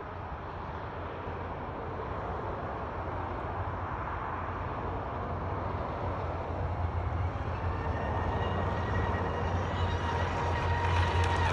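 Pro Boat UL-19 RC hydroplane's brushless electric motor whining as it runs at speed across the water, growing louder as it approaches, with a slightly rising whine in the second half over a low rumble.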